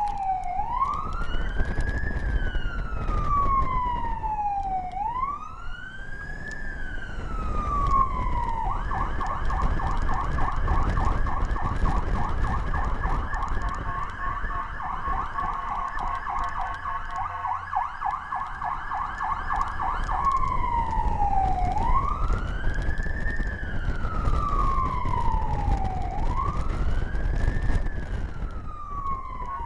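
Fire department emergency vehicle's siren heard from inside the cab while the vehicle responds to a call. It wails, rising and falling about once every four to five seconds. About a third of the way in it switches to a rapid yelp for roughly eleven seconds, then goes back to the wail, over the low rumble of the truck's engine and road noise.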